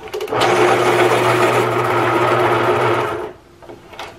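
X-ACTO Teacher Pro electric pencil sharpener's motor and cutter grinding a colored pencil, starting about a quarter second in and running steadily for about three seconds before stopping on its own once the point is fully sharpened. A few light clicks come before the run and near the end as the pencil is handled.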